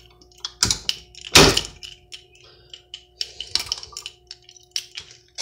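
Edwards 270-SPO fire alarm pull station being opened and reset by hand: two heavy thunks less than a second apart, the second louder, then a few lighter clicks about three and a half seconds in.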